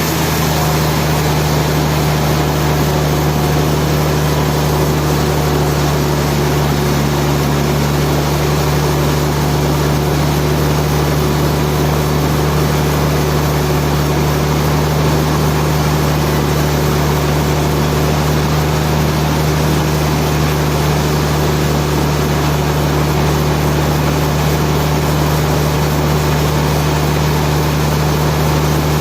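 Heavy machinery running steadily with a low, unchanging mechanical hum.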